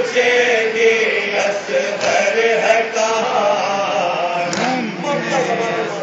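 Men's voices chanting together in a melodic, sustained chant, led by a man on a microphone.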